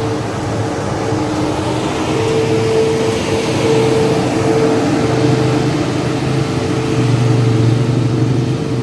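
Tour bus diesel engine running under load on a steep uphill bend: a steady low drone with a held whine above it.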